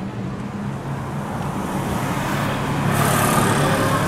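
City street traffic at a bus terminal: buses and cars with a steady low engine hum, and a brief hiss about three seconds in.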